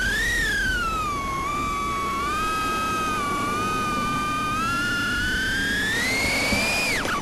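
Eachine Lizard 105S racing quadcopter's motors and propellers whining in flight: one high tone that rises and falls with the throttle. It climbs over the last few seconds and drops sharply near the end as the throttle is cut.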